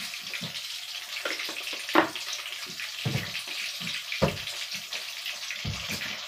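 Minced pork and shrimp patties frying in hot oil in a pan: a steady sizzle and crackle. A few sharp knocks cut through it, the loudest about two seconds in and again about four seconds in.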